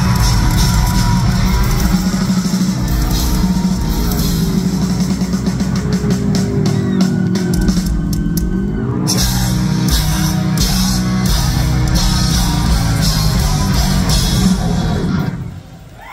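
Heavy metal band playing live at full volume: distorted electric guitars, bass and drum kit, with a rising slide in pitch about halfway through. The band stops abruptly about a second before the end.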